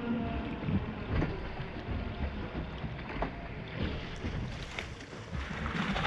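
Water lapping and slapping against an unlimited hydroplane sitting nearly still on the river, with wind buffeting the onboard camera's microphone and a few short knocks.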